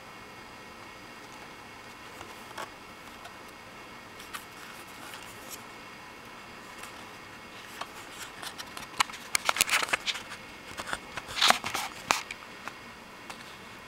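Paper handling: a CD booklet and promo flyers being rustled and their pages flipped. Scattered light ticks at first, then a busy flurry of rustles and snaps in the second half, loudest shortly before the end.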